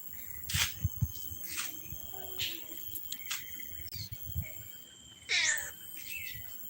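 A kitten meows once about five seconds in, a short falling cry, among scattered brief scuffling and rustling noises. Insects chirr steadily underneath.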